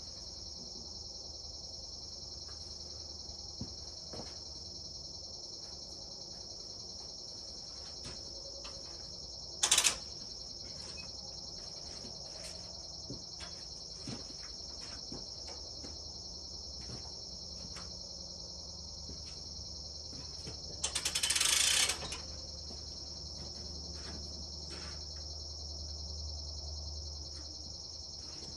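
Steady high-pitched insect chorus, with scattered faint clicks and knocks. A short loud noise about ten seconds in and a longer noisy burst of about a second a little past twenty seconds stand out.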